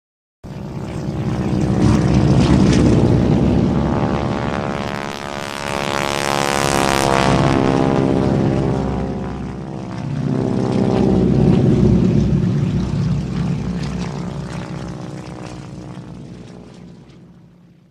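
Propeller airplane engine drone. It swells and eases several times while its pitch slides up and down, then fades out near the end.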